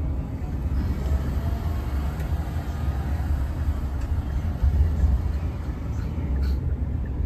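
A vehicle running, with a steady low rumble.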